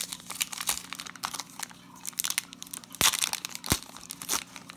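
Wrapper of a football trading card pack being torn open by hand: irregular crinkling and tearing crackles, loudest about three seconds in.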